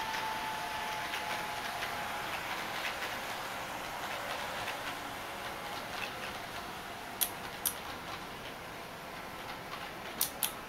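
HO-gauge model electric train running on its track, its motor giving a faint, slowly falling whine made by the homemade PWM controller to imitate a real train's drive sound, over light ticking of the wheels on the rails. Two pairs of sharp clicks come in the second half.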